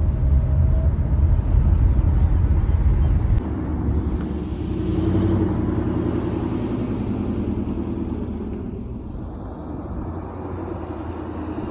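Car driving on the road: heavy low road and wind rumble that drops off abruptly a few seconds in, then a lighter, steadier running sound that slowly fades.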